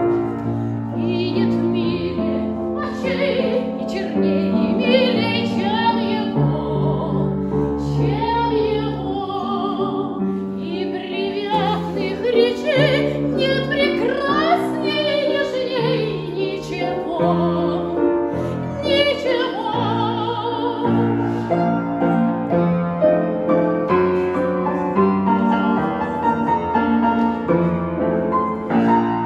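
A woman sings a romance in a trained, operatic voice with vibrato, accompanied by piano.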